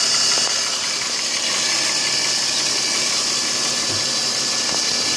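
Chevrolet Epica engine idling steadily, heard from above the open engine bay, with an even high hiss over the running. From above, the extraneous noise that the owner traces to the lower part of the engine near the oil-pump chain is barely noticeable.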